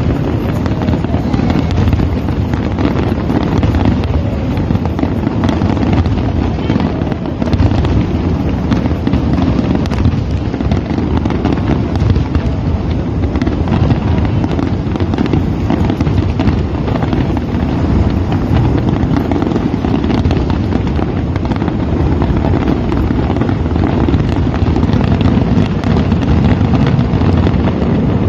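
Fireworks display going off without pause: a dense barrage of bursts and crackles that keeps an even loudness throughout.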